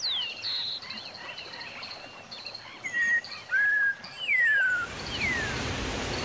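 Several forest birds calling: short chirps and clear whistles that slide down in pitch. Near the end a steady rush of falling water from a waterfall comes in under the birds.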